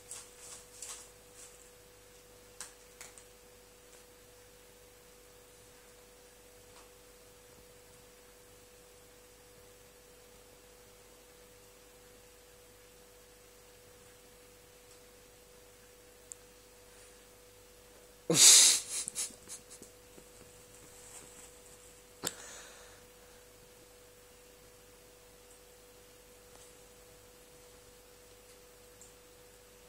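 A steady faint hum tone with a few soft clicks near the start. About two-thirds through comes a sudden loud burst of noise lasting about a second, and a shorter, quieter one follows a few seconds later.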